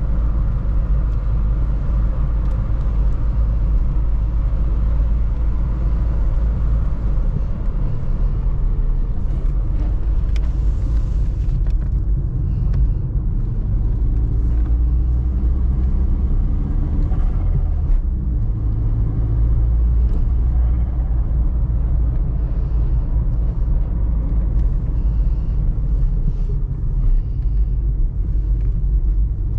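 Audi A3 1.8T's turbocharged inline-four (AGU, 150 hp, K03 turbo, cone air filter) running under way, a steady low rumble that rises and falls gently in pitch, with a short hiss about ten seconds in.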